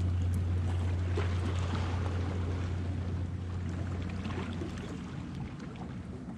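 Low, steady engine drone of a passing boat, slowly fading.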